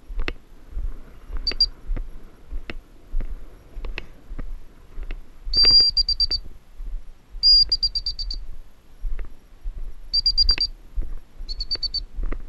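Five short bursts of rapid, high-pitched electronic beeping, the loudest near the middle, over steady footsteps in snow that thud roughly twice a second.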